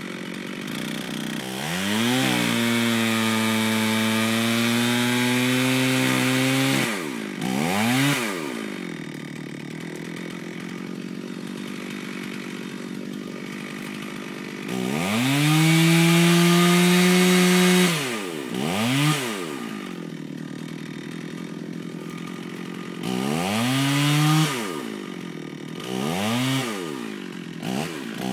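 Two-stroke Stihl chainsaw revving to full throttle and cutting wood for about five seconds, its pitch sagging under load, then dropping to idle. A second, louder cut of about three seconds comes about halfway through, with short throttle blips between idles and several more near the end.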